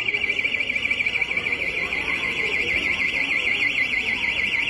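Electronic alarm sounding continuously, a high tone warbling rapidly up and down about five times a second.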